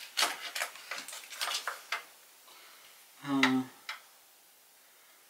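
Foil MRE sauce pouch being squeezed out, a quick run of crinkles and wet squelches over about two seconds as applesauce is pressed onto a tray. A brief hummed 'mm' from a man's voice past the middle, and a single click just after it.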